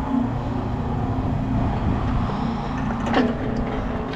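A vehicle engine running steadily with a low drone. About three seconds in there is a brief high squeal that falls quickly in pitch.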